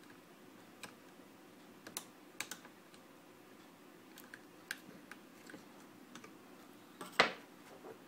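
Small scattered plastic clicks and ticks as a metal hook tool pries at a rocker arm inside a Mercedes COMAND control knob unit, with one louder click about seven seconds in as the rocker arm comes free.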